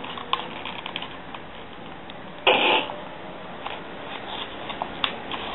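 Sheet of A4 paper crinkling and crackling in small clicks as it is folded and pressed by hand, with one louder short burst of noise about two and a half seconds in.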